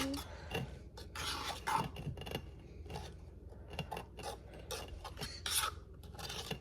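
A utensil stirring and scraping a thick slime mixture in a bowl: irregular scrapes and rubs with small clicks against the container.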